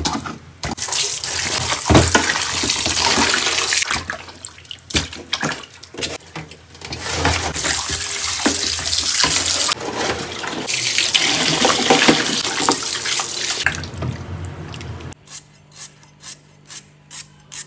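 Tap water running into a steel basin as meat bones are washed by hand, dipping briefly twice. About 15 seconds in it gives way to sharp, evenly spaced clicks, about two a second, of shallots being sliced against a curved kitchen blade.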